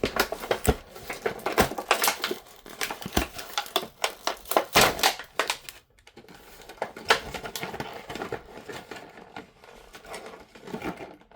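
Cardboard and plastic blister packaging being torn and crinkled open by hand: irregular crackles, snaps and rustling, busiest in the first half, with a brief pause about six seconds in.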